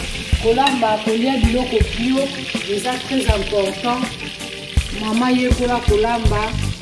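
Pieces of salted fish frying in hot oil in a pan, a steady sizzle, with background music behind it: a singing voice over a regular beat.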